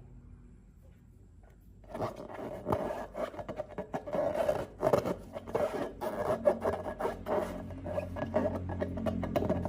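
Hands working slime and rubber balloons, heard as a dense, irregular run of crackling, rubbing and clicking that starts about two seconds in after a quiet start.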